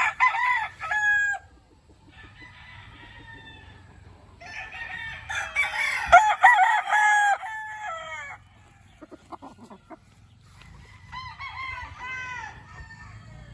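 Young gamefowl roosters (stags) crowing in three bouts, the loudest in the middle where several crows overlap, with some clucking.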